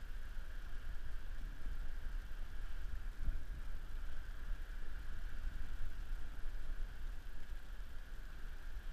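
Wind rumbling on the microphone, with a steady faint high hiss and no distinct event.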